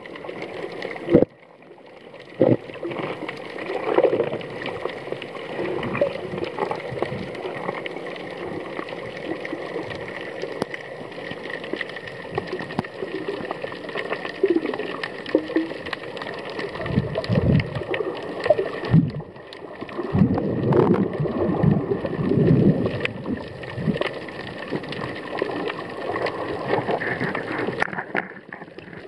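Water sloshing and gurgling, heard underwater, with louder bubbling gurgles in the second half.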